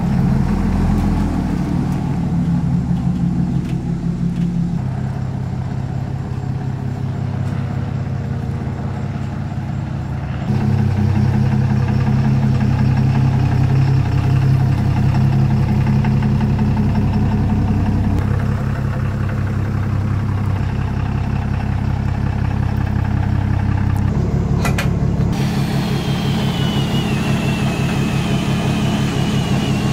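Dually pickup truck's engine running at low speed while turning with a gooseneck trailer hitched, its note stepping louder and quieter a few times. A short knock comes near the end.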